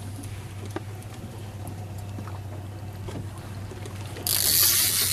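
Steady low hum of the fishing boat's engine with faint clicks from the rod and reel gear. Just past four seconds a loud hiss starts suddenly and lasts about a second and a half.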